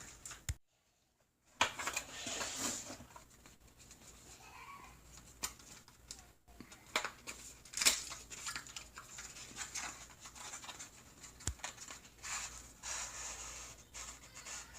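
Rustling and scattered clicks and knocks from objects being handled, with a brief dead silence about half a second in.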